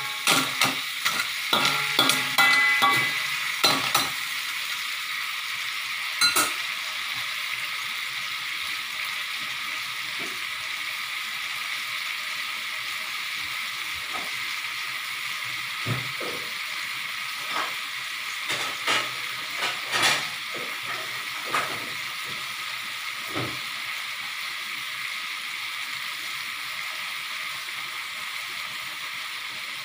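Blood cockles in a bubbling sauce in a wok. A spatula scrapes and clatters against the wok and the shells for the first few seconds, then the sauce keeps up a steady sizzle with scattered clicks as the cockles cook through.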